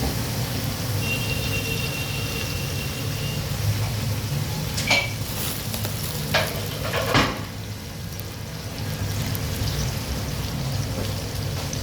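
Food frying and sizzling in a cooking pot, with a few sharp knocks of a utensil against the pot about halfway through.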